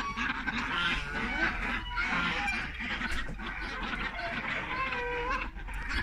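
Flock of farmyard poultry, ducks and chickens among them, calling over one another: many short overlapping calls.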